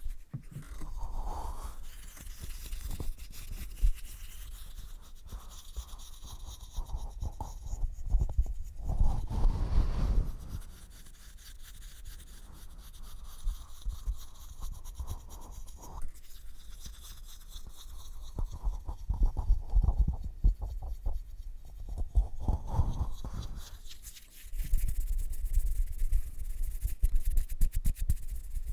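Bristle brush stroked close against the microphone in uneven passes: a scratchy rustle with dense fine crackle and a low rumble, strongest near the end.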